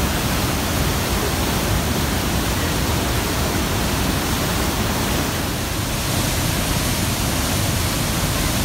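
River in flood at high water, rushing steadily through rapids and falls, heard as a loud, even wash of water noise.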